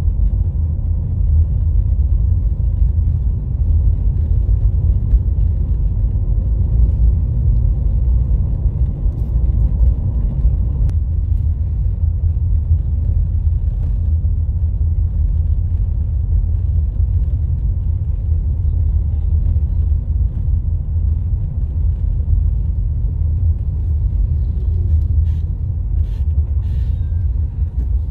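Steady low rumble of a car driving, heard from inside the cabin: engine and tyre road noise, with a few faint clicks near the end.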